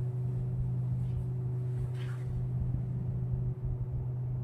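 Steady low hum with a low rumble beneath it, and a faint brief hiss about two seconds in.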